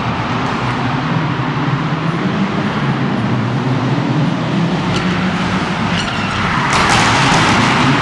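Mitsubishi Lancer Evolution X rally car's turbocharged four-cylinder engine running hard as the car drifts round the course. Sharp cracks come twice about five and six seconds in, and a louder rush of noise comes in near the end.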